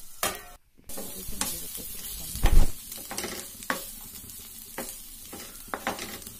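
Diced bitter gourd sizzling in oil in a nonstick frying pan while a spatula stirs and scrapes through the pieces in short, uneven strokes. A loud knock about two and a half seconds in.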